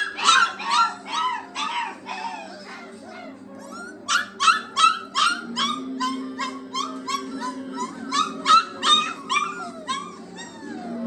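Catahoula bulldog puppies yelping and whining in quick runs of short, high cries that rise and fall, about three a second. One run comes at the start, a lull follows for about two seconds, then a longer run.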